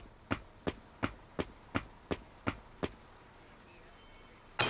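Cartoon footsteps walking at a steady pace, about three sharp steps a second, stopping about three seconds in.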